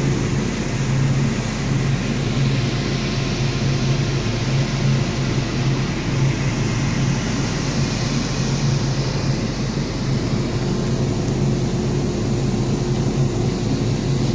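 A boat's engine running with a steady low drone, under strong wind noise on the microphone.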